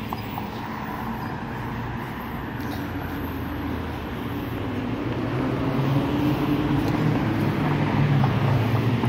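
Road traffic noise with a steady low engine hum that grows louder about halfway through.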